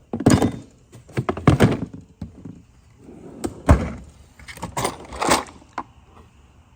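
Tool storage compartments being handled: a string of about half a dozen knocks and clatters from doors, drawers and tools, with rustling in between.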